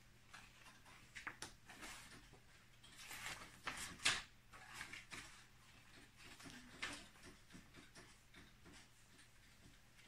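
Paper pages of a picture book being handled and turned, with several short rustles, the loudest about four seconds in.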